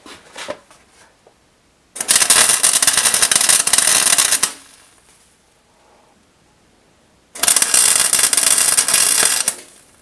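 MIG welder arc crackling as it welds a sprocket, in two runs of about two and a half seconds each with a pause between. A few light knocks come before the first run.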